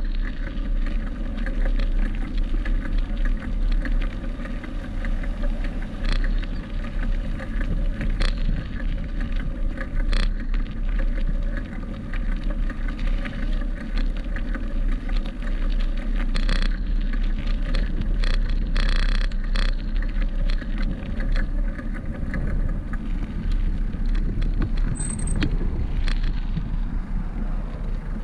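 Steady wind rush and low rumble on the microphone of a bicycle-mounted camera while riding over pavement, with scattered clicks and knocks through it.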